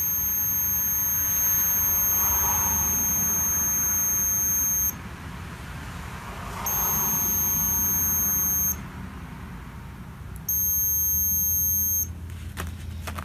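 Digital multimeter's continuity beeper sounding a steady high tone three times, about five seconds, then two, then a second and a half, as its probes are held across an old brake pressure switch. The tone means continuity: the normally open switch is shorted.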